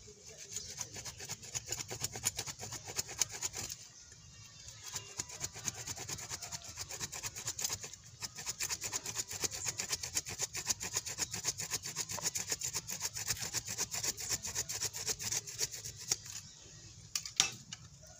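Hand saw cutting through a thick root of a serut (Streblus asper) bonsai stock in fast back-and-forth strokes. It pauses briefly twice and stops shortly before the end.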